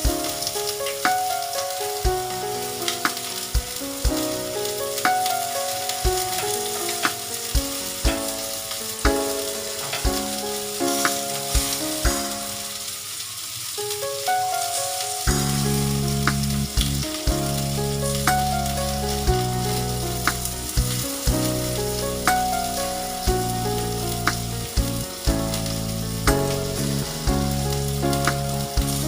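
Food sizzling and frying in a pan, with a steady hiss and occasional sharp clicks as it is stirred. Soft background music plays underneath, with a bass line coming in about halfway through.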